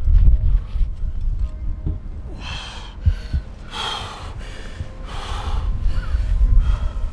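A rock climber's hard, forceful breathing while pulling through moves on a steep route. The sharp exhalations and gasps start about two and a half seconds in and come roughly once a second, over a low rumble.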